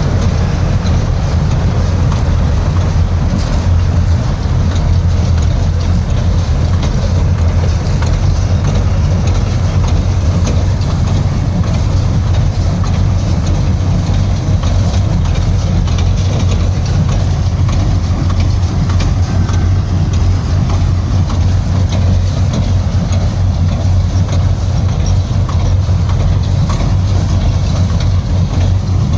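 Twine-making factory machinery running steadily: a constant low hum with a fine, fast ticking rattle over it.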